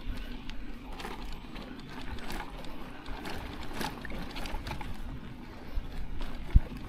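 Loaded bicycle rolling over a bumpy sandy dirt track, its gear rattling in irregular clicks and knocks over a low rumble, with one sharper knock near the end.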